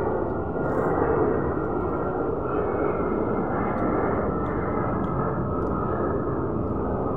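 Steady rumbling background noise, with a few faint crackles of cheese ring snacks being handled and broken apart partway through.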